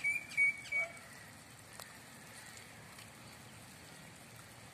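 A bird chirping rapidly several times in the first second, then a faint, steady hiss of the tamarind fish gravy boiling in a metal pot over a wood fire, with one small click about two seconds in.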